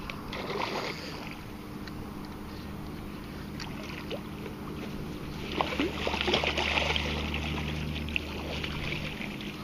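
A hooked sheepshead splashing at the water's surface as it is brought to the landing net, with a burst of splashes about five and a half to seven seconds in. A low steady hum runs underneath.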